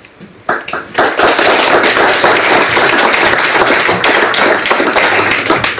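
Small audience applauding, a few first claps about half a second in and then steady clapping.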